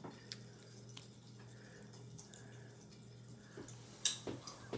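Pop Rocks candy crackling in glasses of water: faint, scattered little clicks and pops, with one sharper click about four seconds in.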